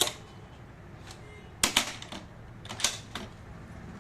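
Sharp mechanical clicks and clacks from a smart door lock being handled, in three short clusters: one at the start, a quick double click a little over halfway through, and another pair near the end.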